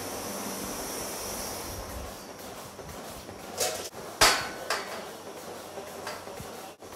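Three sharp knocks, the loudest a little over four seconds in, over a steady background hiss that fades after about two seconds.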